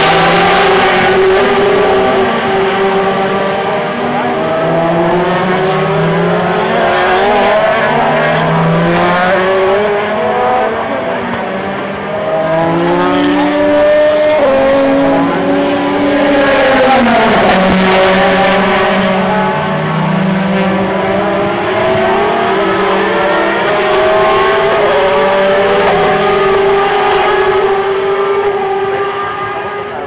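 DTM touring cars (Audi A4 and Mercedes C-Class) with their 4.0-litre V8 engines running hard on the circuit. Several engine notes rise and fall as the cars accelerate, shift gears and pass, over one steady held engine note.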